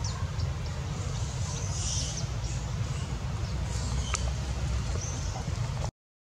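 Outdoor ambience: a steady low wind rumble on the microphone with scattered faint high chirps, broken by a brief dropout to silence near the end.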